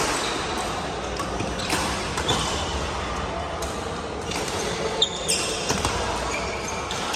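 Badminton rally: sharp racket hits on the shuttlecock about every second, with short high squeaks of court shoes on the hall floor, over the echoing background of play on neighbouring courts.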